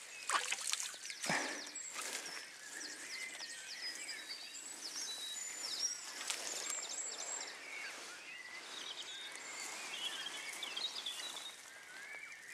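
Dawn chorus of small songbirds, many short chirps and trills throughout, with a few brief splashes in the first second or two as a hooked ide thrashes at the surface.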